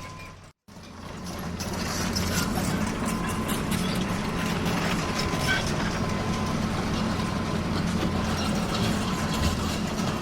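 Excavator working: its diesel engine runs steadily while metal parts clank and rattle in quick irregular clicks. A brief break to silence comes about half a second in, then the sound fades back up to full level.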